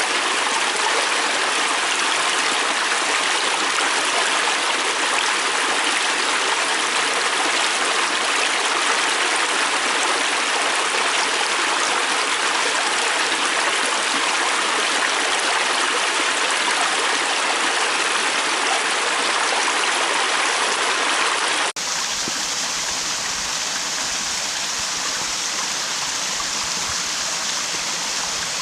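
Flowing stream water rushing steadily over rocks. About 22 seconds in it cuts abruptly to a different, slightly quieter stretch of running water with a hissier, thinner sound.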